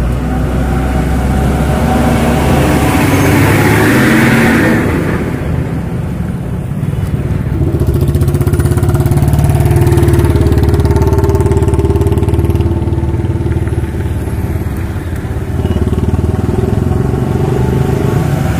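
Heavy diesel trucks passing close on a road. A loaded dump truck's engine and tyres swell and pass in the first few seconds. Then an Ashok Leyland multi-axle lorry's engine drones steadily as it approaches, with motorcycles running alongside.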